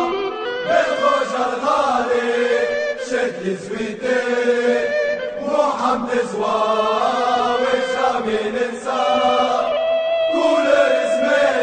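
Massed football supporters singing a melodic chant together in unison, the voices held on long notes.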